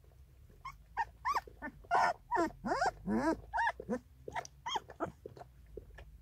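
Young puppy whining and squealing in a quick run of short, high calls that arch up and down in pitch. The calls are loudest in the middle and trail off into a few softer, lower whimpers near the end.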